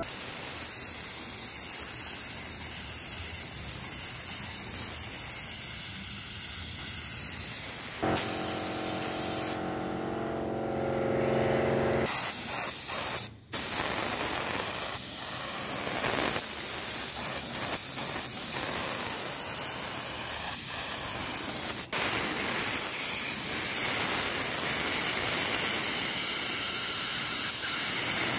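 Air spray gun hissing steadily as it sprays paint onto a steel bicycle frame; the hiss breaks off and starts again abruptly a few times.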